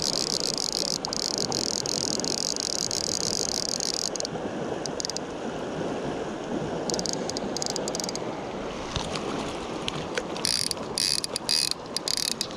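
Fly reel clicking in three spells as slack line is wound onto it to play a small hooked fish from the reel, over the steady rush of the river.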